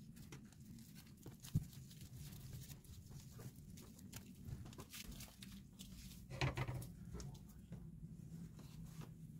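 Faint handling sounds of hands folding a sheet of roasted seaweed around rice and fillings into a square kimbap on a wooden cutting board: soft rustles and small taps, with one sharp knock about one and a half seconds in and a louder, longer rustle a little past the middle.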